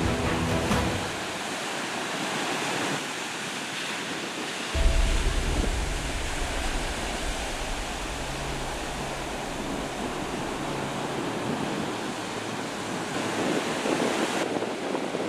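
Ocean surf breaking and washing over rocks, a steady rush of waves. Background music fades out about a second in, and a low rumble joins the surf from about five seconds in.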